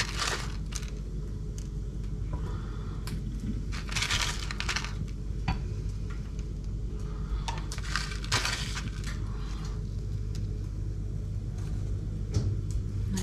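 Kitchen handling sounds while a burger is assembled: three short bursts of crinkly crunching or rustling, about four seconds apart, with light clicks and clinks of dishes, over a steady low hum.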